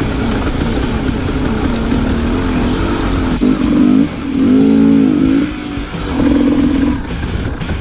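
Dirt bike engine heard from the rider's helmet camera, its note wavering with the throttle on rough trail, then rising and falling in two stronger revs, about halfway through and near the end, over a low wind rumble.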